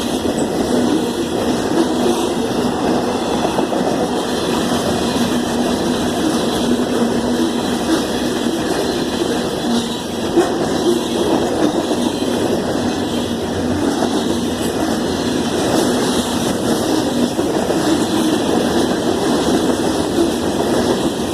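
Manifest freight train rolling past at trackside: a steady rumble of wheels on rail that holds even throughout.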